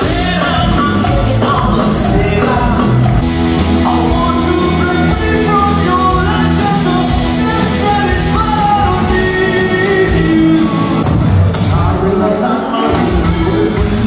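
Live band music with a man singing lead over a full band.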